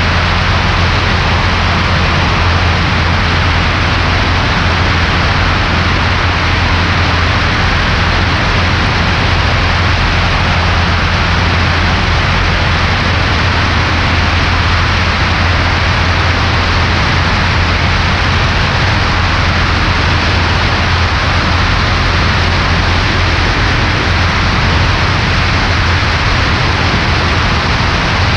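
Steady drone of a Cessna 140A's piston engine and propeller with rushing air noise, as heard in the cabin in level flight. The engine has a newly installed cylinder that is being broken in.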